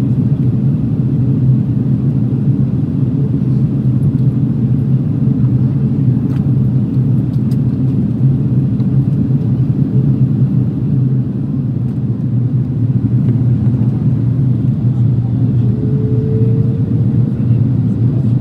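Steady, even cabin rumble inside an Airbus A330-200 in flight: engine and airflow noise with no change in power.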